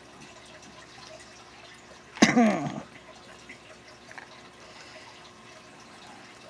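Quiet handling of costume jewelry, with small clicks of beads and chain, and a woman's short exclamation, falling in pitch, about two seconds in.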